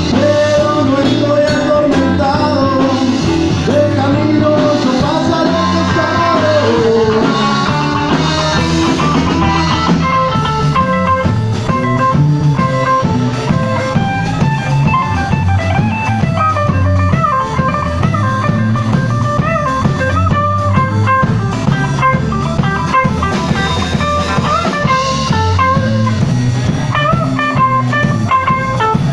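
Live blues-rock band playing loudly: drum kit and a Stratocaster-style electric guitar, with singing over roughly the first third, then a guitar lead with bending notes.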